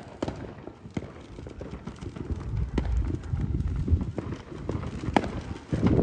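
Fireworks going off: scattered irregular pops and cracks over a low rumble, with one sharper crack about five seconds in.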